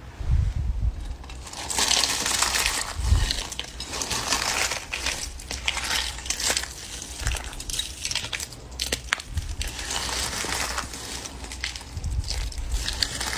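Slime being squeezed and worked by hands, giving a steady stream of irregular crackles, crunches and small clicking pops.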